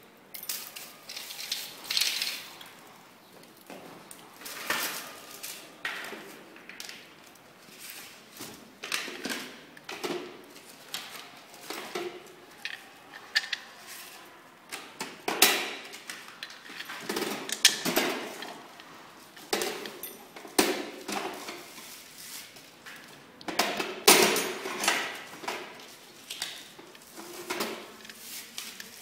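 Irregular clicks, taps and light knocks of small plastic and metal parts of a scooter twist-throttle being handled and fitted together, with a hex key working in the throttle housing.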